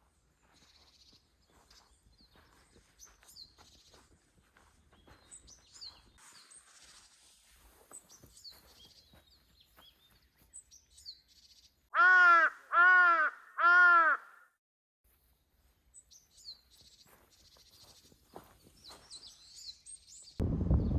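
A crow cawing three times in quick succession, loud harsh calls about a second apart, over faint high chirping of small birds. Just before the end a low rushing noise starts.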